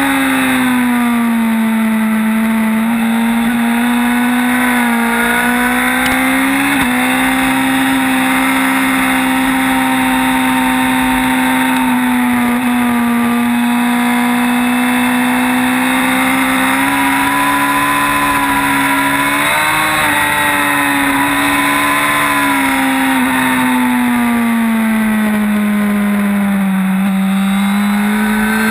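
Sport motorcycle engine held at high revs at track pace, its pitch sagging and climbing gently with the throttle. There is a small step in pitch about seven seconds in, and a slow dip and climb again near the end.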